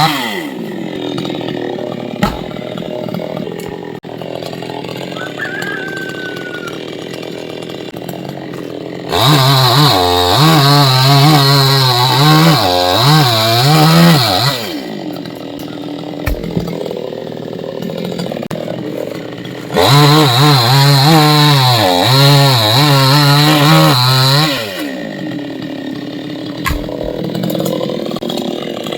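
Chainsaw idling, then run up to full throttle twice for about five seconds each, its pitch wavering under load as it cuts into a coconut palm trunk. It drops back to idle in between and after.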